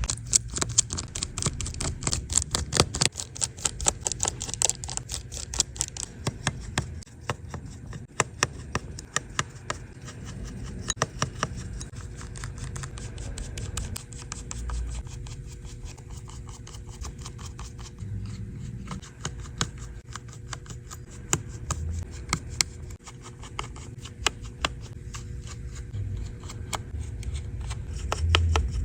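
Small hand tools clicking, tapping and scraping against a MacBook's metal and plastic parts during a repair, a dense run of sharp clicks, thickest in the first few seconds.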